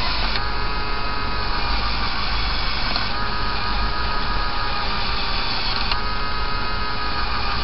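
Small LEGO electric motor and plastic gear train of a Technic crane running steadily with a whirring gear whine as the grab bucket is lowered on its cable. The whine's pitch changes twice, about three and six seconds in.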